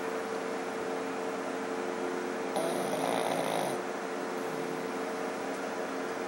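Pug snoring in its sleep: one snore about two and a half seconds in, lasting about a second, over a steady low hum.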